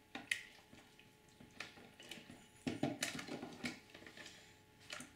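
Hands kneading and pulling fluffy shaving-cream slime in a plastic tub: faint, scattered wet squishes and sticky pops, several in a row.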